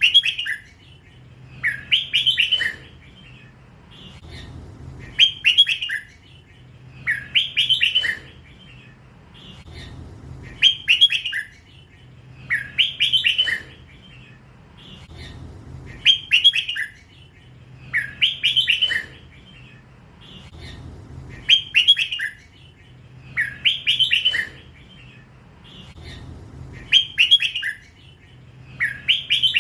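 Red-whiskered bulbul singing the same short, clear phrase over and over, about one phrase every two to three seconds. It is the drawn-out 'lak wai' song style prized by Thai bulbul keepers, from a young crossbred bird.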